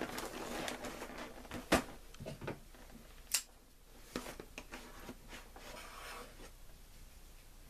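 A cardboard collectible-toy box being handled to open it: rustling and scraping of cardboard with a few sharp clicks and taps, the loudest a little under two seconds in and just past three seconds in.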